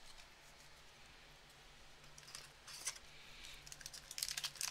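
Hockey trading cards being flicked through by hand, light scattered clicks growing more frequent, then a foil card pack crinkling in the hand near the end.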